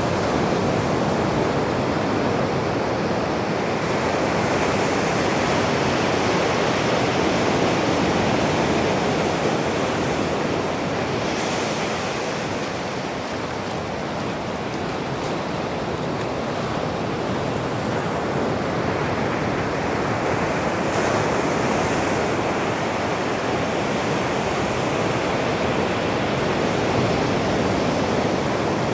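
Ocean surf breaking and washing up a sandy beach: a steady rushing wash that swells and eases slowly.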